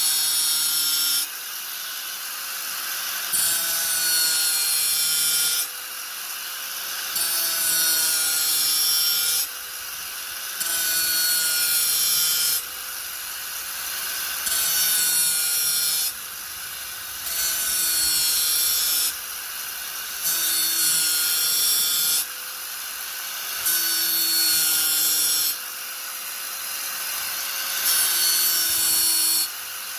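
Angle grinder running steadily, repeatedly pressed into wood in passes of about two seconds, easing off briefly between them, so the sound swells and drops again and again.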